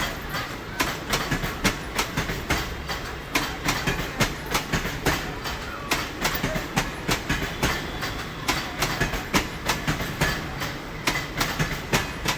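Indian Railways train running along the track, its wheels clacking over the rail joints several times a second over a steady rumble.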